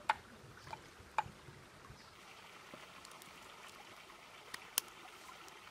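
Shallow stream water running and trickling, with a few sharp clicks and taps, two of them close together near the end.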